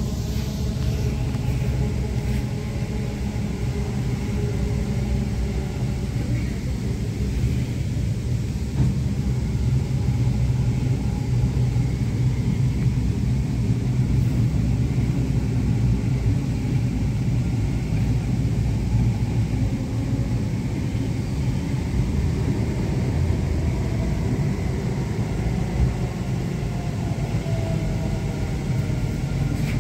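Bengaluru Namma Metro train running, heard from inside the carriage: a steady low rumble of wheels on rails with a faint motor whine. The whine shifts in pitch near the end as the train nears a station.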